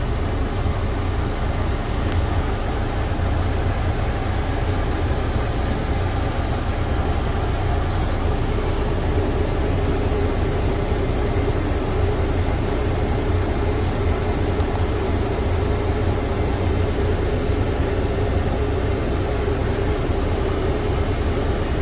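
International MaxxForce 13 inline-six diesel idling steadily at about 600 rpm, back at low idle after a completed parked DPF regeneration.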